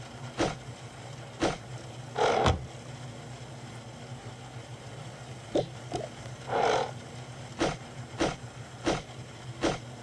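Belongings being handled and set down while a room is tidied: a series of short knocks and rustles, about nine in all, some longer and scraping, over a steady low hum.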